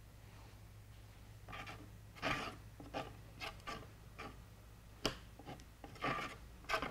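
Wooden popsicle stick spreading and scraping thick acrylic gel medium across a gessoed panel: soft, irregular scraping strokes over a low steady hum.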